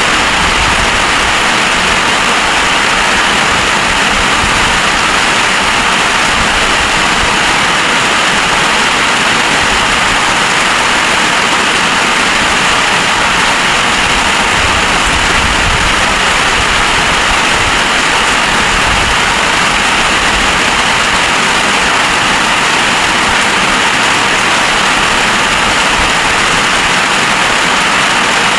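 Storm rain pouring steadily and heavily, an even loud hiss with wind rumbling on the microphone underneath.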